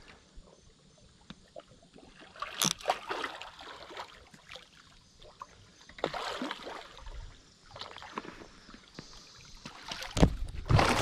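Water splashing and sloshing as a big blue catfish thrashes at the surface on a tight line, in irregular bursts, with a louder, heavier burst of splashing near the end.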